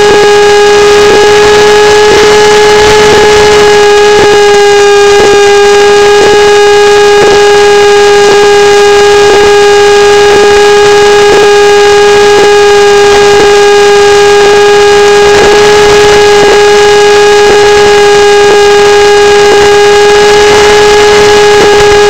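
Electric motor and propeller of a Hype DG1001M RC motor glider running at steady throttle: a loud, even whine that holds one pitch, with a light tick about once a second.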